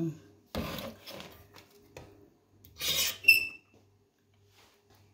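A metal-handled utensil scraping thick cream out of a plastic jug. There are two louder scrapes, about half a second and about three seconds in, with lighter rubbing between them. Just after the second scrape comes a short ringing clink of kitchenware.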